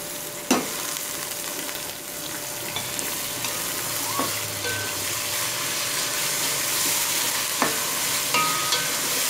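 Minced mutton sizzling in hot ghee with sliced onions as it is added and stirred in a pan with a spatula. Two sharp knocks stand out, one just after the start and one near the end.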